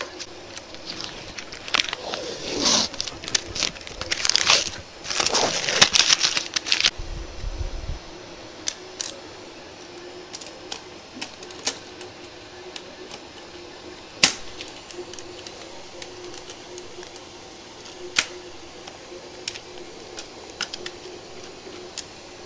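A sheet of cardboard being handled and cut by hand: several seconds of rasping, scraping strokes, then occasional light clicks and taps over a faint steady hum.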